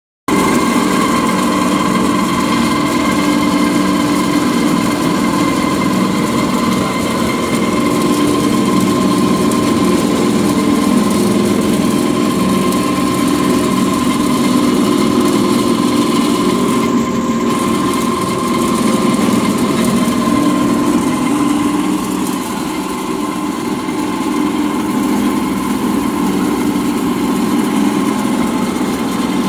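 Pellet mill running steadily under load, extruding tofu cat litter pellets: a constant loud machine drone with a steady whine over it.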